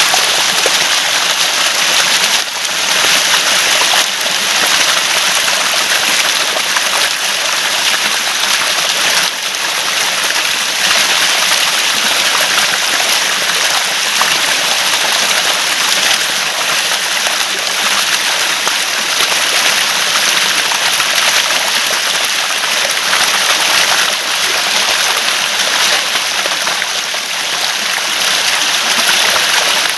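Running water gurgling steadily, a continuous rushing wash of flow.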